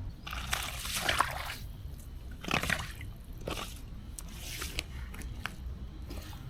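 Water splashing in about five short bursts, the longest in the first second and a half, with a few sharp drips between them.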